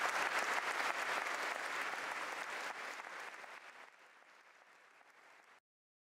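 Audience applauding, dying away over the last few seconds, then cut off abruptly near the end.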